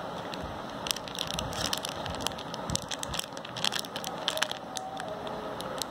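Crinkly plastic chocolate-bar wrapper crackling as small hands handle it, in quick, irregular crinkles starting about a second in.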